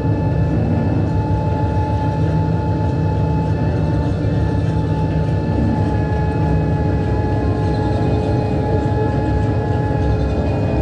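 Small amusement-park ride jeep driving along its track: a steady motor whine held at one pitch over a constant low rumble from the running gear.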